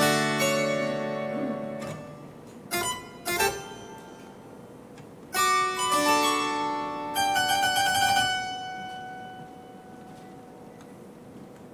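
Harpsichord played sparsely. A chord rings out and fades, two short, sharp notes follow, then a few more chords sound and die away slowly.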